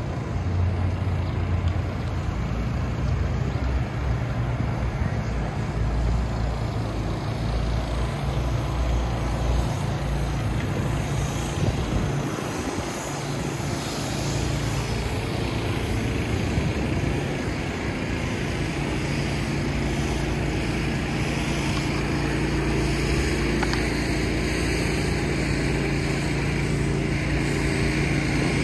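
City street traffic: a continuous low rumble of vehicle engines and tyres, with a steady engine hum that builds over the second half.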